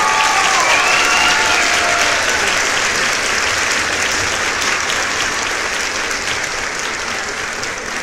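A crowd applauding, with a few voices calling out over the clapping in the first couple of seconds; the applause eases off slowly toward the end.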